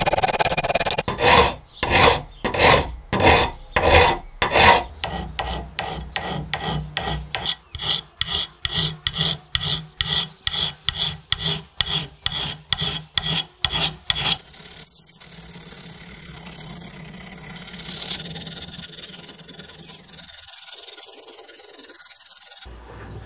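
Hand file rasping back and forth over the steel of an axe head in even strokes, about two to three a second. About two-thirds of the way through, the strokes give way to a quieter, smoother rubbing of abrasive paper wrapped on the file against the blade edge.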